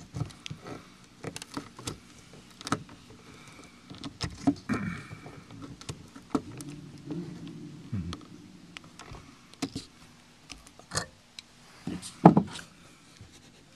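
Irregular clicks, scrapes and knocks of a tool prying a metal Romex cable staple out of a wooden attic joist. The loudest knock comes near the end.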